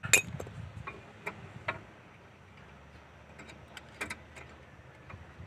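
Scattered light metal clicks and taps as a rear brake caliper and new brake pads are handled and fitted, the sharpest click just after the start.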